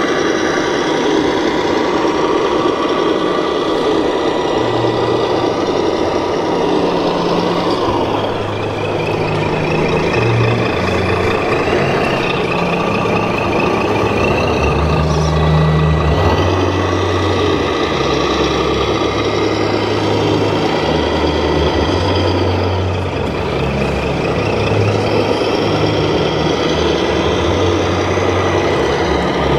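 Scale diesel truck engine sound from the RC military truck's sound unit, stepping up and down in pitch as the throttle changes. A warbling beep sounds for a few seconds near the middle. Steady crowd noise of an exhibition hall runs underneath.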